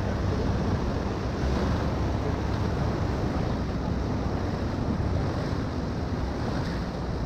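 Steady wind noise on the microphone over rushing river water along the tubes of a moving inflatable raft.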